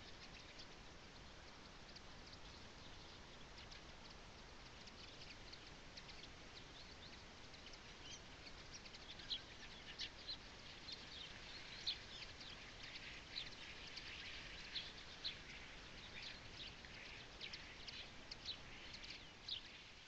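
Small songbirds chirping in short, sharp calls that start about a third of the way in and grow busier toward the end, over a faint, steady rush of wind.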